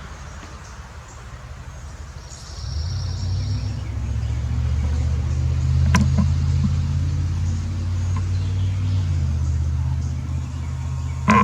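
A car engine running close by, a steady low hum that comes in about three seconds in and holds. A sharp click about halfway through and a louder one at the very end.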